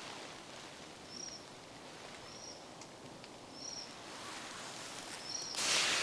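A bird repeating a short high call about once every second or so over steady outdoor background noise, with a louder brief rush of noise near the end.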